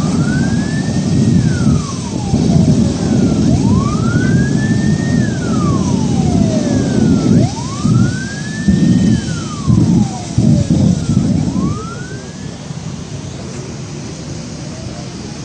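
Emergency vehicle siren wailing, a slow rise and fall that repeats about every four seconds, over a heavy low rumble; both die away about twelve seconds in.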